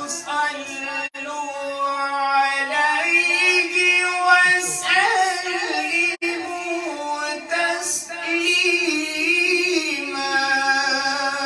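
A man reciting the Quran in the melodic tajweed style into a microphone: long drawn-out phrases whose held notes waver and turn in pitch.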